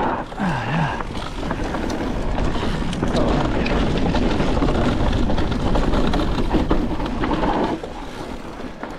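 Niner WFO e9 mountain bike riding fast down a rocky dirt singletrack: a steady rush of tyre and trail noise with constant rattling and knocking from the bike, easing off a little near the end.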